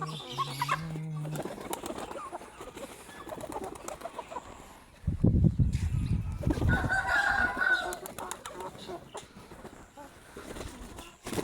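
Fancy birds feeding, with a loud burst of wing flapping about five seconds in and a pitched bird call soon after, over scattered small clicks.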